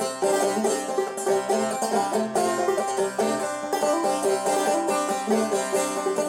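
Five-string banjo played clawhammer style, a steady unbroken run of quick plucked notes.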